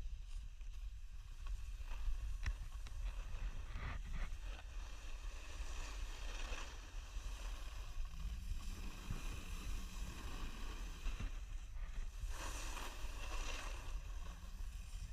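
Wind buffeting a GoPro microphone during a snowboard run, a steady low rumble, with the hiss of the board sliding over snow swelling about six seconds in and again around twelve seconds.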